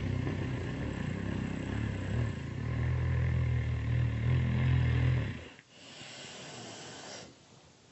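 Loud, rasping snore drawn out for about five seconds, followed by a softer, breathy exhale.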